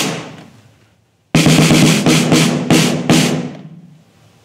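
Ludwig Black Beauty snare drum struck once and left to ring out, then, after a short break, played with sticks in a quick run of about eight strokes that rings out. The drum is being played to check the snare-wire tension just set on the strainer.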